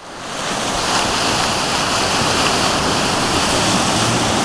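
Surf breaking on a rocky shore: a steady rush of waves that swells up during the first second and then holds.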